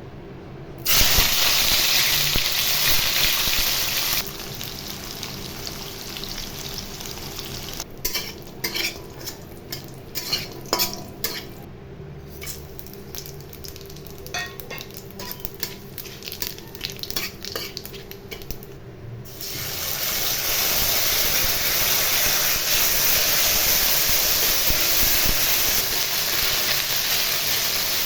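Food sizzling loudly in hot oil in a pan, broken in the middle by a spatula stirring and scraping against the pan in quick clicks and knocks; the loud sizzle swells up again near the end.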